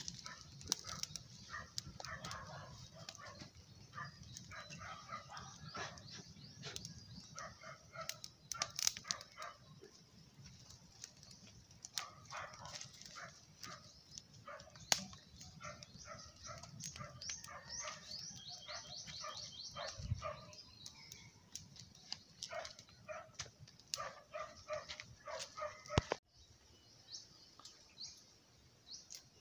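Open wood fire crackling with scattered sharp pops, over birds chirping and short repeated animal-like calls. The sound drops quieter suddenly near the end.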